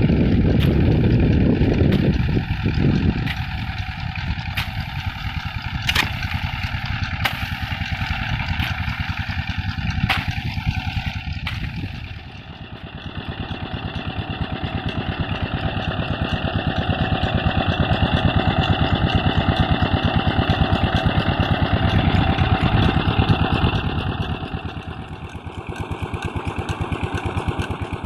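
Petter diesel engine of a tube well running with a rapid, even beat. Its loudness dips and swells twice.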